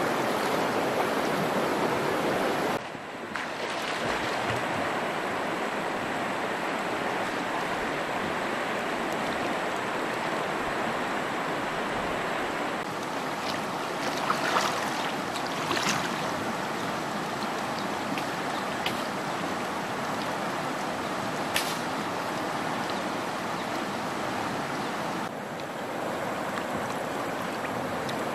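Shallow river rushing steadily over stones. A few short splashes come in the middle as someone wades and works in the water.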